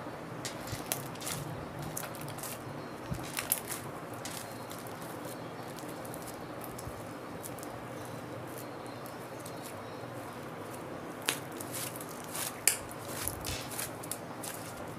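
White clay slime being stretched and folded by hand, making scattered sharp clicks and pops: a cluster in the first few seconds and another near the end, over a steady hiss.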